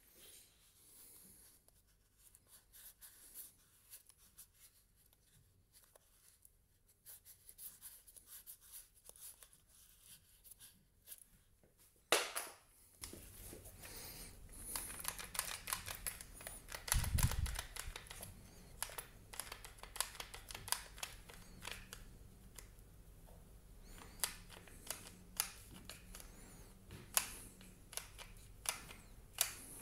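Light handling of a sandal, then a series of sharp plastic clicks from a one-handed bar clamp's ratcheting trigger being squeezed as the clamp tightens onto the sandal's sole, with a knock and a low thump along the way.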